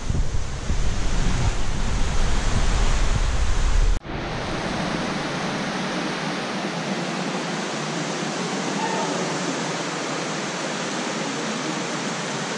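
Steady hissing background noise. A low rumble runs under it for the first four seconds and stops suddenly.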